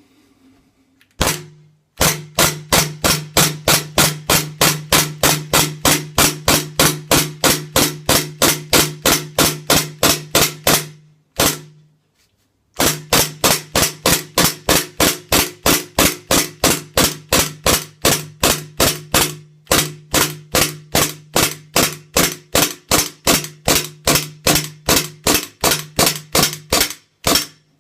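WE G17 gas blowback airsoft pistol firing shot after shot, about three sharp cracks a second: one shot about a second in, a steady run until about eleven seconds, one more shot, a pause of about a second, then another steady run until near the end. It is being emptied in a gas efficiency test, firing until the magazine's gas charge runs out.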